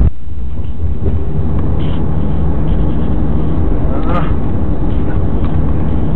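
Car cabin noise while driving: a steady low road and engine rumble, with a steady engine hum coming in about a second in and a brief higher-pitched sound about four seconds in.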